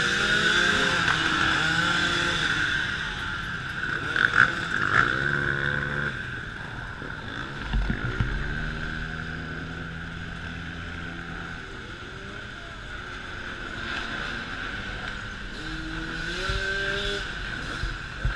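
A stream of enduro dirt bikes riding past, several engines at once revving up and down as they go by, with a few louder revs about four, five and eight seconds in.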